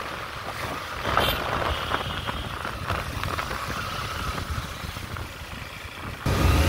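Motorcycle engine running steadily under way, with road and traffic noise around it. The sound gets abruptly louder and deeper just before the end.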